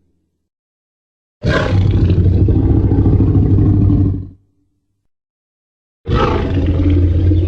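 Tyrannosaurus rex roar sound effect, heard twice. A loud roar of about three seconds starts a little over a second in and tails off. After a gap of silence, a second roar begins near the end.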